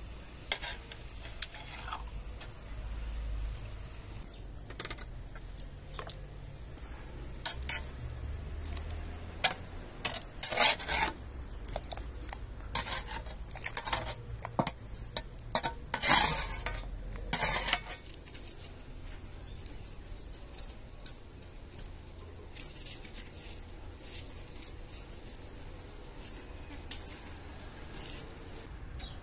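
A metal spoon clinking and scraping against a steel cooking pot and a metal tray, in a run of sharp clinks and knocks that is busiest in the middle and then settles to lighter ticks.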